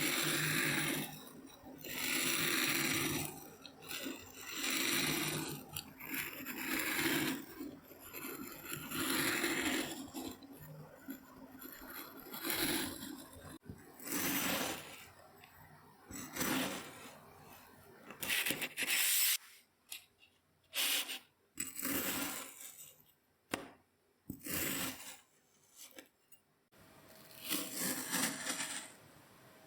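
Kinetic sand being crushed and cut, with a run of gritty scraping strokes about a second long each, then shorter, sharper crunches with brief pauses between them in the second half.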